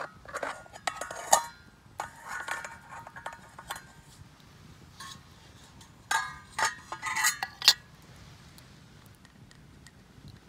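Stainless steel camping frying pan and the metal plate covering it clinking and scraping together as a pot gripper takes hold of the pan and the plate is lifted off. The clinks come in three clusters with short ringing, the last about six seconds in.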